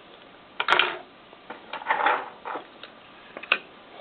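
Small die-cast toy cars being handled, with a few short rattles and clicks, the loudest cluster about half a second to a second in and a sharp click near the end.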